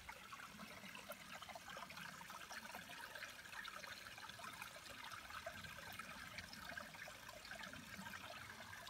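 Small creek trickling over rocks, faint and steady.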